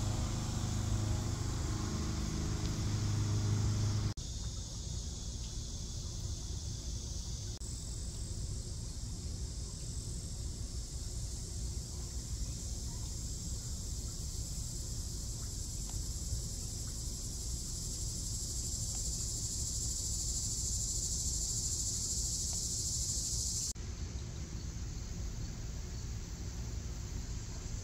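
Outdoor insects buzzing steadily in a high pitch over a low rumble. For the first four seconds an engine hums along with them, then cuts off abruptly. The buzz grows louder about seven seconds in and drops away sharply near the end.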